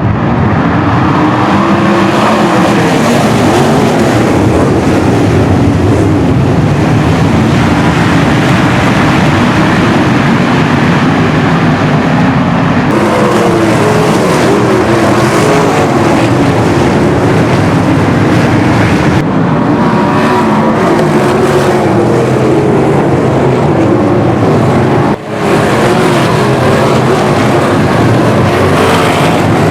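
Several 410 sprint cars' methanol-burning V8 engines running loud on the track, their pitch rising and falling as the cars go through the turns and pass. The sound breaks off abruptly three times, with a brief drop about 25 seconds in.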